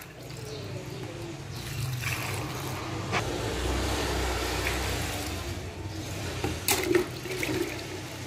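Water poured from a steel ladle onto dry milk-powder dough mix in a metal tray: a steady pouring rush that builds, holds for a few seconds and eases off, with a couple of sharp clicks.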